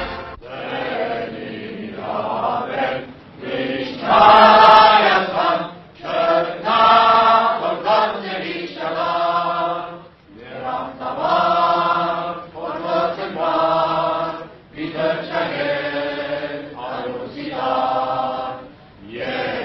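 Armenian school choir singing in unison and harmony, in phrases of a second or two separated by brief pauses.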